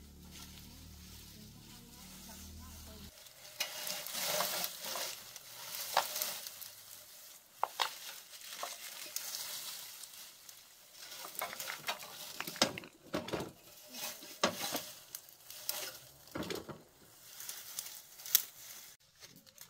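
Dry, dead vines and brush rustling and crackling as they are pulled apart and dragged away by hand, with sharp twig snaps here and there.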